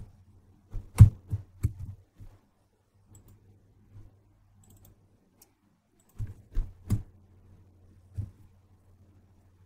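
Computer keyboard and mouse clicks: a short run of clicks about a second in, another around six to seven seconds, and a single click near the end, over a faint low steady hum.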